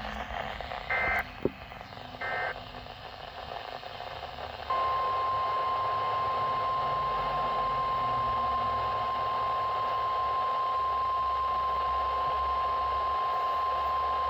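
Three short warbling digital data bursts about a second apart, the SAME header of an emergency weather alert. About five seconds in, a steady 1050 Hz weather-radio warning alarm tone starts and holds unbroken for about ten seconds, signalling that a weather alert is about to be read.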